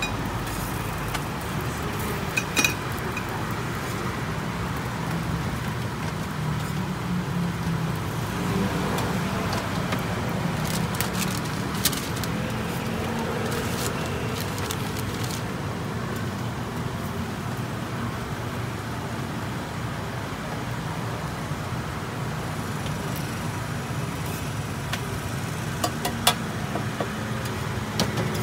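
Steady low rumble of roadside traffic and street-stall noise, with a few short sharp clicks and taps around the middle and near the end.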